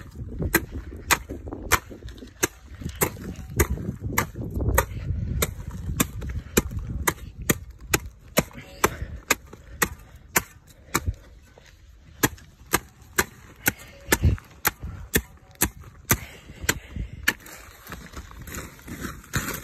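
A machete chopping over and over into the old frond bases (the "boots") on a Canary Island date palm trunk, cutting them away to clean the trunk. The strikes come about two a second, sharp and irregular, with a brief pause about halfway through.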